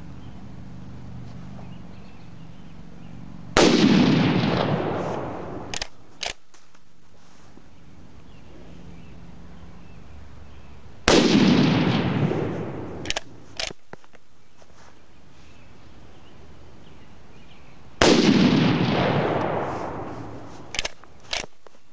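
Three shots from a Swiss K31 straight-pull rifle in 7.5×55mm Swiss, about seven seconds apart, each followed by a long echo dying away over about two seconds. After each echo come two quick sharp clacks as the straight-pull bolt is pulled back and pushed forward to chamber the next round.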